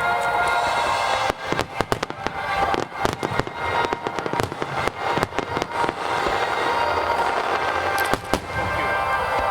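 Fireworks display: rapid crackling and popping of bursting shells, densest in the first few seconds and thinning out later, over music with long held tones.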